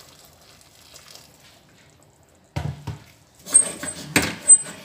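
Faint pouring of hot water into a steel pot. About two and a half seconds in comes a dull thump, then a quick run of metal clinks and knocks from pots and utensils being handled, one clink ringing briefly.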